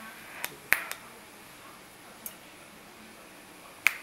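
TIG welding arc on an exhaust manifold, a steady hiss, broken by a few sharp clicks about a second in and again near the end.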